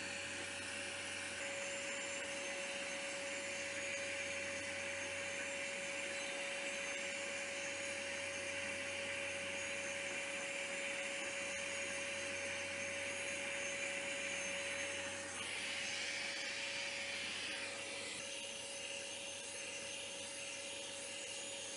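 Grinding spindle and shop-vac dust extraction running steadily while a grinding wheel grinds the neck relief on a carbide end mill, with a steady hum under a hiss. About fifteen seconds in, a harsher grinding hiss swells for a couple of seconds, then settles back.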